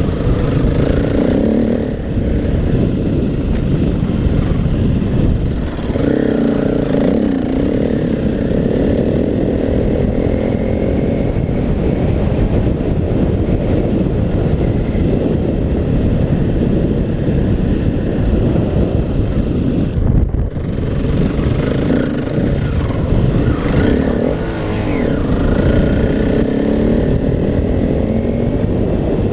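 KTM 350 EXC-F single-cylinder four-stroke dirt bike engine running while ridden, its revs rising and falling, with a brief dip about twenty seconds in. Heavy wind rumble on the microphone.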